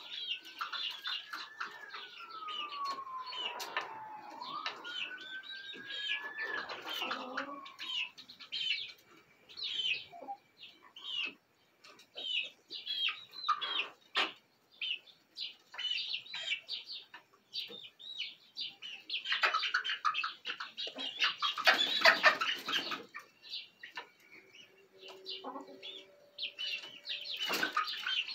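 Young chickens on a roost peeping and chirping in short, quickly repeated calls, with loud wing-flapping about twenty seconds in and again near the end as birds hop up and jostle on the perch. A distant siren wails up and down through the first several seconds.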